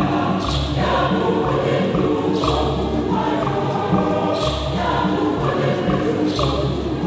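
Large mixed choir singing an Igbo choral hymn in full harmony, with a deep beat about every two seconds under the voices.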